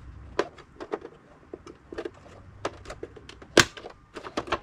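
Plastic snap clips on the rear casing of a Chevy Silverado instrument cluster being pried loose: a string of sharp plastic clicks, with the loudest snap about three and a half seconds in.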